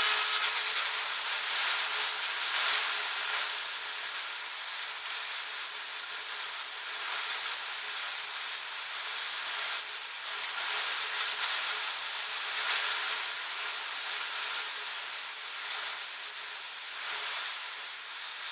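Rust-Oleum Professional Series aerosol spray paint can spraying a gray top coat in a continuous hiss that rises and falls slightly in loudness.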